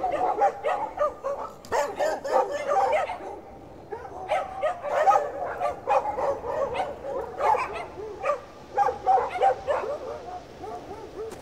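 Dogs barking in rapid strings of short barks, with brief lulls about three and eight seconds in.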